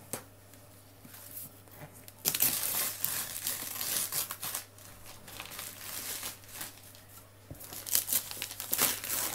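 Gift wrapping paper being torn and crumpled by hand off a large cardboard toy box, in bursts of ripping and crinkling, loudest a couple of seconds in and again near the end.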